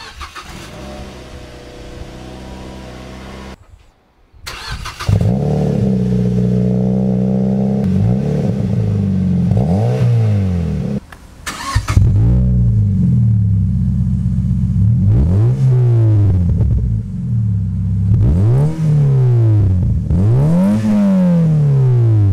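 Mazda NC MX-5's four-cylinder engine idling quietly through its stock muffler, then, after a short break, running much louder through an aftermarket muffler. The louder part has repeated throttle blips, each rising and falling in pitch.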